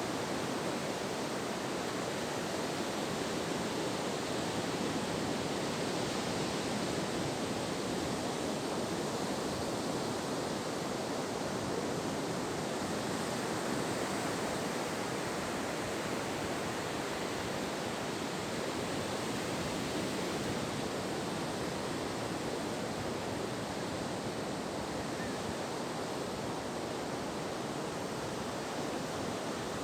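Ocean surf on a beach: a steady, even rushing noise.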